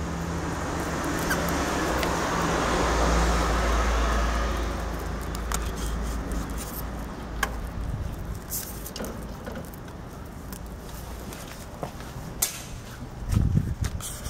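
A road vehicle passing: engine and road noise swell over the first few seconds and fade by about six seconds in. Scattered sharp clicks follow, then a low thump near the end.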